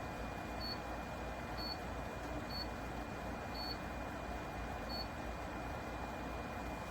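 Dehumidifier running: a steady, even fan and compressor hum with a thin high whine. Short high electronic beeps sound about once a second and stop about five seconds in.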